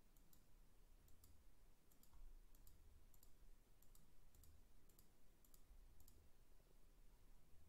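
Faint, sharp clicks, many in close pairs, coming roughly every half second and stopping about six seconds in, over a faint low hum.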